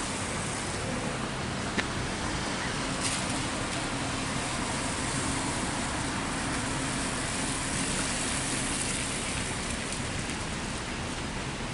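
Road traffic passing steadily, a continuous rush of tyres and engines with no horn, mixed with wind noise on the microphone. Two small clicks come a couple of seconds in.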